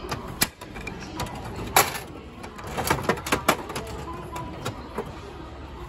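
Handle of a gachapon capsule-toy vending machine being turned by hand: a string of sharp ratcheting clicks at uneven intervals, the loudest about two seconds in and a quick cluster a little after three seconds.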